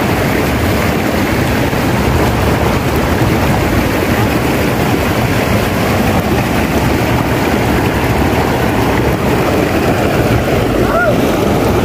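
Fast-flowing river current rushing steadily over a shallow, rocky bed, heard from just above the water's surface.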